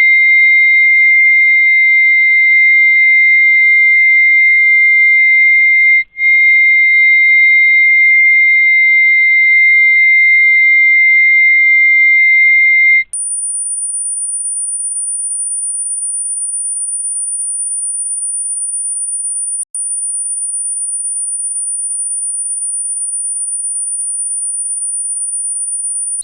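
Electronic test tones played to annoy cats: a loud, steady, shrill tone that breaks off briefly about six seconds in and stops at about thirteen seconds. A much higher-pitched, quieter whine then takes over, with one brief dropout.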